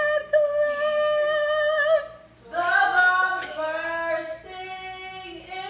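A woman singing long held notes over soft backing music, with a short break about two seconds in.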